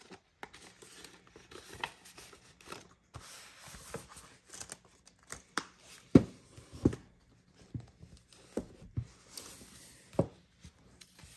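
Paper bills and cash envelopes being handled: rustling and crinkling, with a few sharp taps, the loudest about six seconds in and others about seven and ten seconds in.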